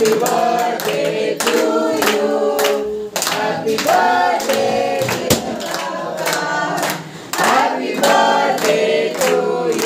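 A group of people singing a song together while clapping along, in sung phrases with short breaks between them.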